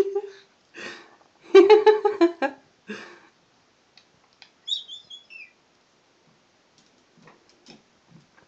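Cockatoo calling: a few short pulsing calls in the first three seconds, the loudest burst about two seconds in, then a single high chirp falling in pitch about five seconds in, followed by faint scattered clicks.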